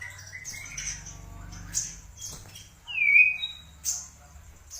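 White-rumped shama calling: scattered short high notes and sharp clicks, with one loud down-slurred whistle about three seconds in, over a steady low hum.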